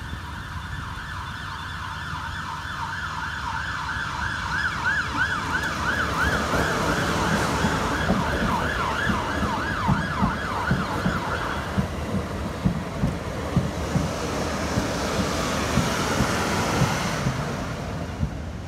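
Level crossing alarm warbling rapidly, stopping suddenly about twelve seconds in. Meanwhile a South Western Railway Class 450 Desiro electric train passes over the crossing, its wheels knocking in a quick, uneven rhythm. The train noise grows loudest near the end.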